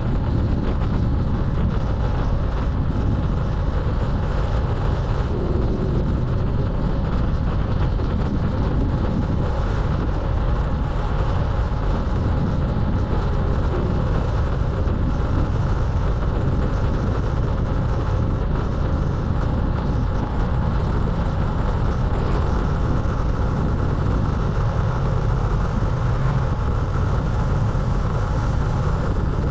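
Steady wind rushing and buffeting over the microphone of a camera on a moving bicycle, loudest in the low range, without a break.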